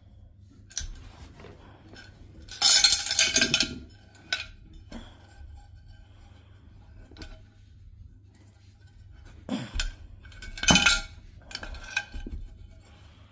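Small metal parts clinking and clattering as they are handled, with two louder rattling clatters, one about two and a half seconds in and one near the end, between scattered light knocks and clicks.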